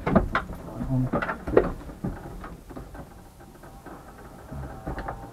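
Irregular clicks and knocks, thickest in the first two seconds, then fainter with a few more knocks near the end, as of objects being handled inside a car.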